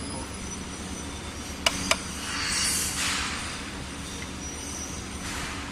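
Two quick sharp clicks, a fifth of a second apart, of hand tools against an LED display module during desoldering, followed by a hiss that swells and fades over about a second, over a steady low hum.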